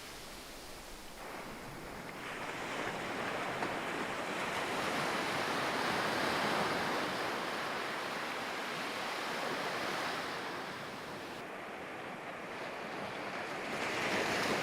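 Ocean surf washing on a sandy beach, swelling and easing as the waves come in and draw back.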